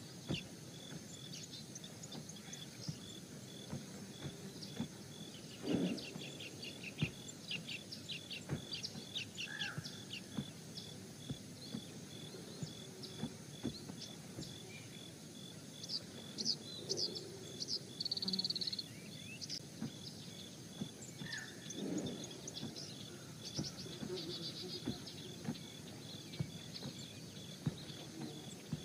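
Nature ambience of small birds chirping in quick runs of short high notes, over a steady, evenly pulsing high insect-like trill and a faint hiss. Twice a brief lower sound stands out, the louder one about six seconds in.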